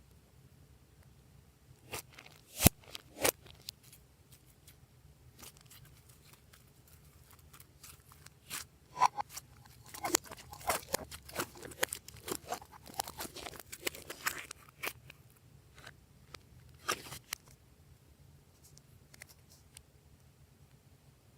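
Glossy slime being squeezed and worked by hand, giving sticky clicks and crackles: a few sharp clicks about two to three seconds in, then a dense run of clicks for several seconds past the middle, and one last click later on.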